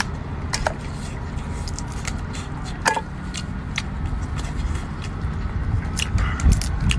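Cooked lobster shell cracking and snapping as it is pulled apart by hand, a few sharp cracks with the loudest about three seconds in, over a steady low rumble.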